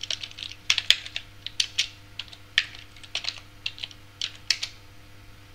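Typing on a computer keyboard: a string of irregular, quick key clicks as a command is entered, over a faint steady hum.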